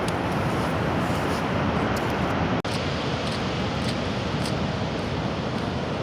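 Heavy Pacific surf breaking and washing up a wide sand beach: a steady rush of noise, broken by a momentary dropout about two and a half seconds in.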